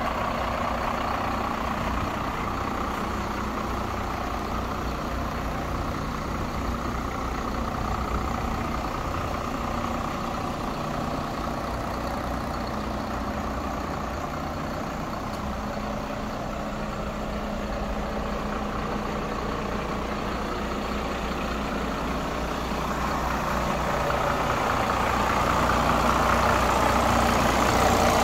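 Iveco Trakker AD190T33 hooklift truck's diesel engine idling steadily, growing louder near the end.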